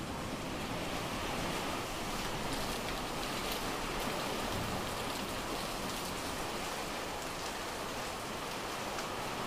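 Torrential wind-driven rainstorm heard from behind glass windows: a steady, dense rush of rain with a few faint ticks.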